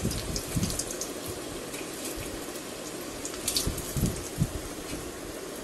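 Vermicelli-coated paneer cutlets deep-frying in hot oil in a wok: a steady sizzle with bubbling. A few brief knocks of the spatula against the pan come about three and a half to four and a half seconds in, as the cutlets are lifted out.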